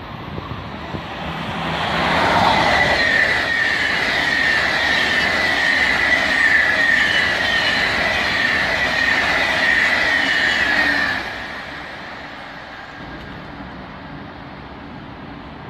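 Passenger train passing through a station at speed without stopping. The rushing noise builds over about two seconds and holds for about nine seconds with a high, pulsing tone over it, then drops off sharply as the train clears.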